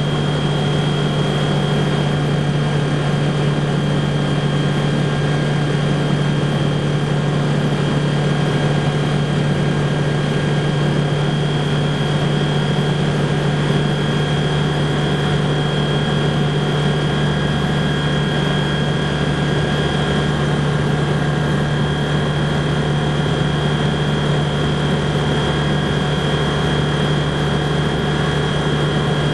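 BushCaddy R-80 ultralight floatplane's Rotax 912 flat-four engine and propeller droning steadily in flight, heard from inside the cockpit, with a thin high whine over the low drone.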